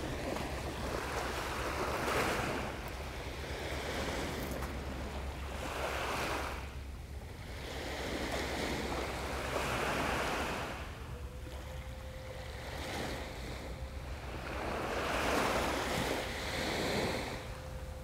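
Waves breaking and washing up the beach, swelling about every four seconds, with some wind rumble on the microphone. A faint steady hum comes in about two-thirds of the way through.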